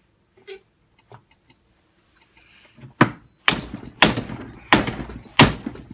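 Five sharp hammer blows on a Vertemati 570 engine's cylinder, about one every half second, starting about halfway through, each with a short ring. They are knocking the stuck cylinder loose from the crankcase. A few faint ticks come before them.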